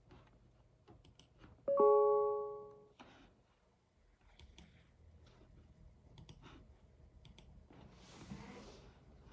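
A short chime of several steady tones sounds about two seconds in and fades out within about a second. Light computer-keyboard clicks come and go around it.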